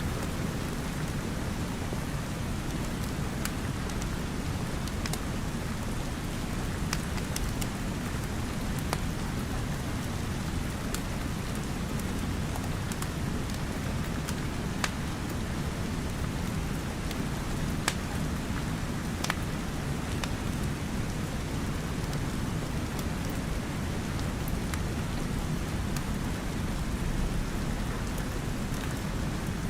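Steady rain with a deep, low rumble under it, and a wood fire crackling with scattered sharp pops, a few louder ones past the middle.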